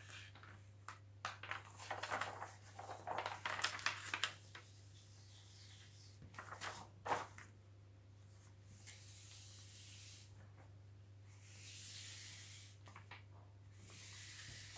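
Protective cover sheet of a sticky diamond painting canvas being peeled back and folded: crinkling, crackling and small taps during the first half, then soft swishes of hands sliding over the sheet to smooth it flat. A low steady hum runs underneath.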